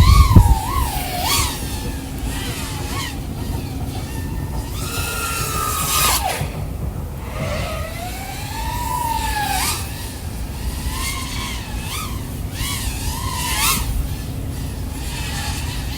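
EMAX Babyhawk O3 3.5-inch FPV quadcopter flying, its four ECO 1404 3700KV brushless motors and propellers whining. The pitch swoops up and down as the throttle changes, over a low steady rumble.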